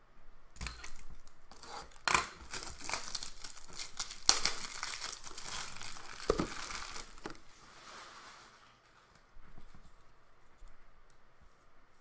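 Plastic packaging crinkling and rustling as it is handled, with sharp clicks about two and four seconds in and a snap a little after six seconds; it dies down by about eight seconds.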